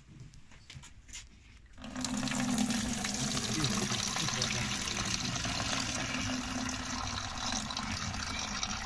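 Tibetan barley wine (chang) pouring from a mesh straining cloth into a metal tub, a steady stream of liquid splashing into the tub that starts about two seconds in.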